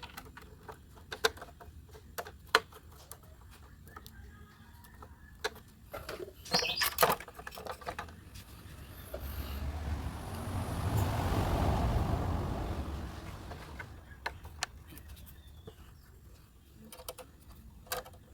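Scattered small clicks and taps of hands working on the gate control box wiring, with a louder run of clicks about seven seconds in. Then a broad rushing noise swells and fades over about five seconds, like a vehicle passing.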